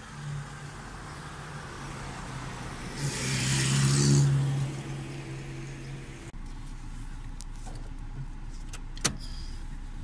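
Audi A3 car engine running at idle, swelling loudest for a couple of seconds about three seconds in. It then switches abruptly to a quieter, steady hum, with one sharp click near the end.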